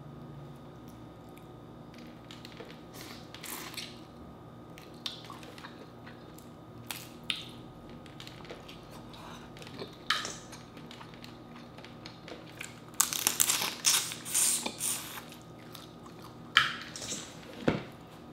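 Boiled seafood shells being cracked and peeled by hand, mixed with close chewing sounds: scattered small clicks, then a dense run of loud crackling about 13 seconds in and more crackles near the end.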